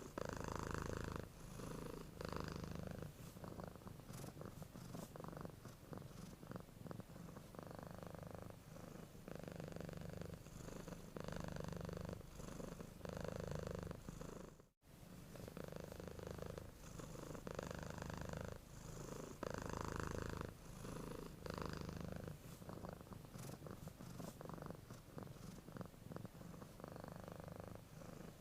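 Domestic cat purring while it sleeps, a steady rumble that swells and eases with each breath, about once every two seconds. The sound cuts out for an instant about halfway through.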